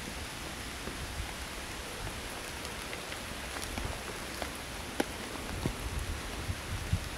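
Steady rain falling on a survival blanket shelter, with separate drops tapping sharply now and then, the clearest about five seconds in and near the end.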